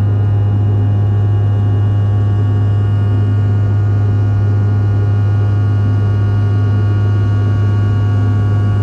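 Cabin noise of a regional jet in flight, heard at a window seat beside its rear-mounted engine: a loud, steady low drone with a cluster of steady whining engine tones above it.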